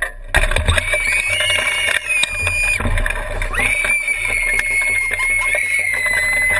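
High-pitched screaming from riders on a swing: one held scream about a second in, lasting nearly two seconds, then a longer held scream from about three and a half seconds in, over a low rumble.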